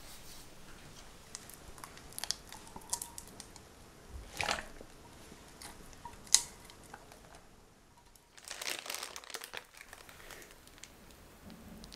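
Disposable plastic piping bag crinkling and rustling in scattered crackles as it is handled and filled with kiwi jam. There is a single sharp click a little after six seconds, and a denser burst of crinkling around nine seconds.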